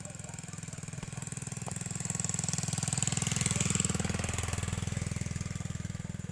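A motor's fast, even buzzing rhythm grows louder to a peak about three and a half seconds in, then fades again as it passes by.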